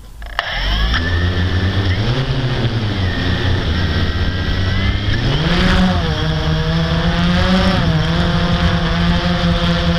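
Blade 350 QX quadcopter's four electric motors and propellers starting up with a sudden surge, then whirring steadily, the pitch rising and falling as the throttle changes.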